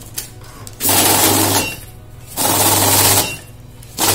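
Kores EasyCount 440 currency counting machine riffling banknotes through its rollers over a motor hum, in two runs of about a second each with a pause between. The machine is stopping after each batch of 15 notes.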